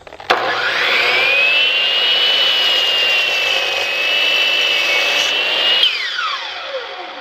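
A DeWalt 12-inch compound miter saw with a Diablo 44-tooth carbide blade switches on, its motor whine rising as it spins up, and chops down through a pressure-treated 2x6. About six seconds in the trigger is released and the whine falls steadily in pitch as the blade coasts down.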